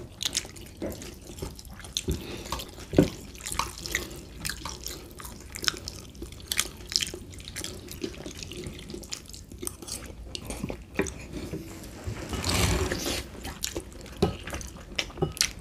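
Close-miked wet eating sounds of spaghetti being eaten: lip smacks, moist chewing and small clicks of forks on plates, with a longer wet slurp of noodles near the end.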